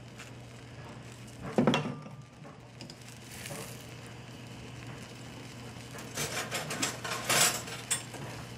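An egg frying in a dry ceramic non-stick pan with no oil, giving a faint steady sizzle. A sharp knock comes about a second and a half in, and a run of clinks and rattles of kitchen utensils comes near the end.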